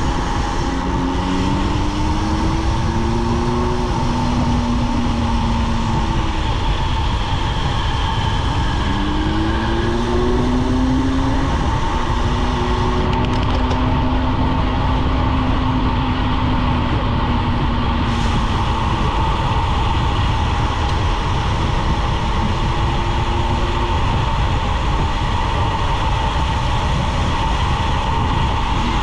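Wind rushing over the camera microphone with tyre and road rumble from a road bike coasting fast downhill. A steady high hum runs through it, and lower tones rise and fall several times.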